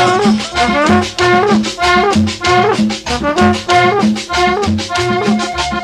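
Colombian cumbia playing loud over a sonidero sound system, with a steady, even bass beat under the melody.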